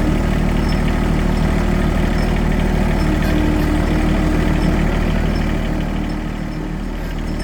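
Farm tractor engine running steadily at low speed while towing a manure spreader, easing off a little near the end.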